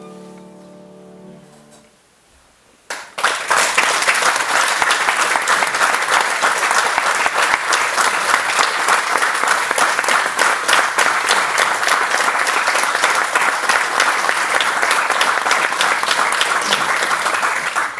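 The last chord of a piano trio (violin, cello and piano) fades away. After a brief hush, an audience breaks into steady applause about three seconds in.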